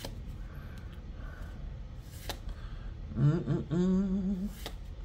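A man humming a short wavering phrase for about a second and a half, starting about three seconds in. Two sharp clicks of trading cards being handled come before and just after it.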